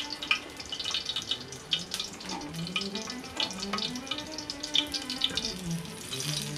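Water running and splashing, as at a kitchen sink, with irregular clinks, over a soft background melody.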